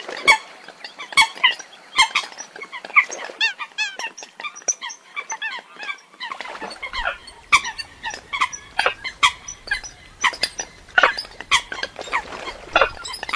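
Eurasian coots calling: many short, sharp calls in quick, irregular succession, with a rapid run of rising notes about three and a half seconds in. A low background rumble comes in about halfway through.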